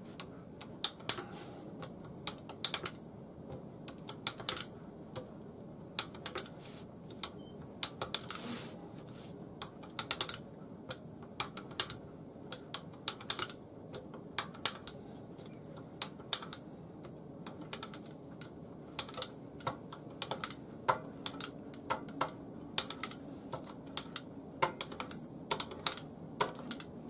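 Kitchen knife cutting rolled egg-noodle dough into strips, the blade tapping down onto the cutting board in quick, irregular clicks.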